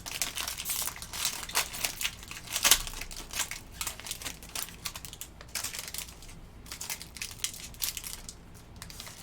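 A trading card pack wrapper crinkling in a string of sharp crackles as it is torn open and peeled off by hand, busiest in the first few seconds and thinning out toward the end.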